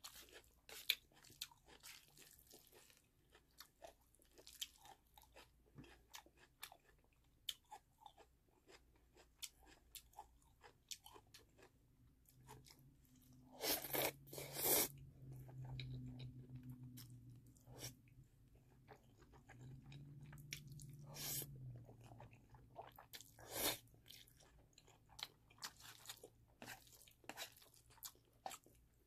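Close-miked chewing of black-bean-sauce noodles (jjajangmyeon), with many small wet clicks and smacks throughout. There are two loud slurps of noodles about 14 seconds in and another loud burst near 24 seconds. A low steady hum comes in through the middle stretch.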